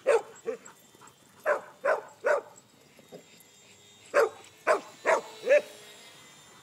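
Dogs barking at a small RC airplane they are chasing: nine sharp barks in two quick runs, five in the first two and a half seconds and four more from about four seconds in.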